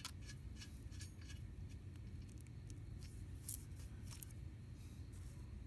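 Scattered light metallic clicks and ticks of small hardware being handled and started by hand: nuts, washers and bolts. A couple of sharper clicks come a little past the middle.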